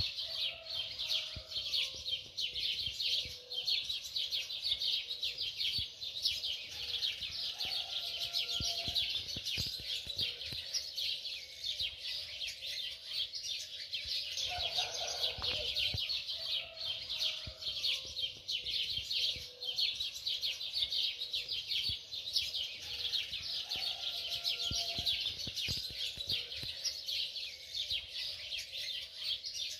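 Birds chirping in a dense, continuous twittering chorus. A lower, shorter call breaks in every several seconds.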